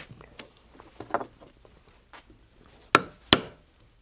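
A mallet striking a rivet setter twice, a short sharp knock each, setting a double cap rivet through a leather strap, after a few light clicks of the rivet and strap being handled.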